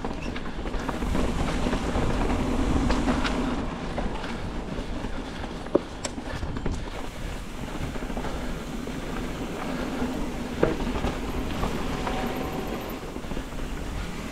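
Evil Wreckoning mountain bike ridden down a dirt trail: a steady rolling rumble and rattle from tyres, chain and frame, with two sharp clacks, about six and eleven seconds in.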